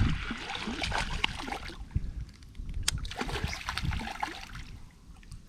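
Shallow creek water splashing and sloshing in two spells of a second or two each, with low knocks underneath.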